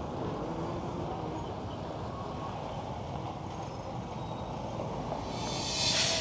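Steady road traffic noise from passing motorcycles, cars and trucks, with a short hiss that swells near the end.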